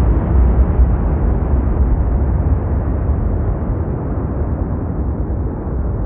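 Jet roar of a formation of JAS 39 Gripen fighters, whose single Volvo RM12 turbofan engines make a deep rumble. The roar slowly fades and grows duller as the aircraft move away.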